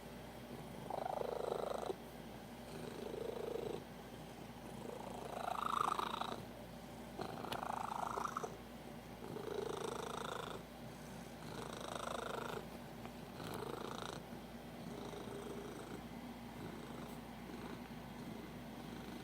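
Domestic cat purring, the purr swelling loud with each breath in and out, about a second per swell, then settling to a softer, steady purr after about fourteen seconds. The purring is a sign the cat is very happy.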